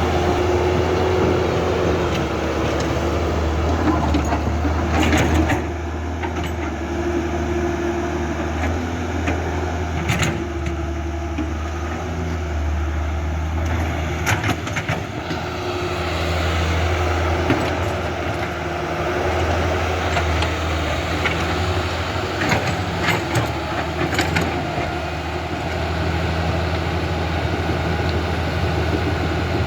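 Electric drive motors and gearboxes of a Huina 1551 RC excavator whirring steadily, their pitch shifting every few seconds as different functions run, with a few sharp clicks now and then.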